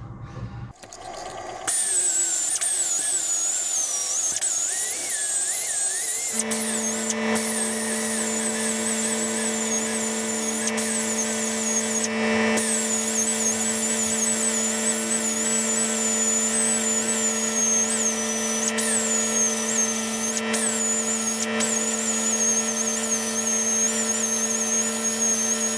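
Handheld power tool running and cutting into an aluminium sheet panel, its high whine wavering up and down with the load. A steady low hum joins about six seconds in.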